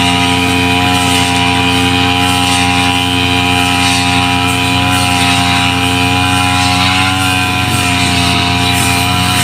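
Small engine of a brush cutter (grass-cutting machine) running steadily at a constant speed.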